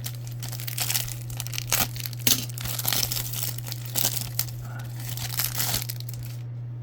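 Crinkling and crackling of a foil trading-card pack wrapper being handled and opened, in many irregular bursts, over a steady low hum.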